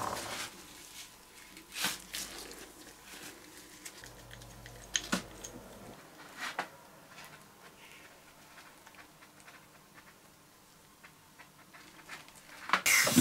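Quiet, sparse clicks and soft smearing of gloved fingers working thick old grease out of a hand drill's gear housing cover.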